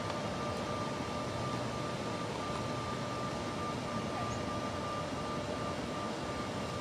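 Steady background noise with a thin, constant high whine running through it.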